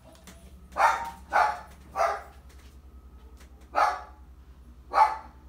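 A dog barking five times, three in quick succession and then two more a second or so apart, over a low steady hum.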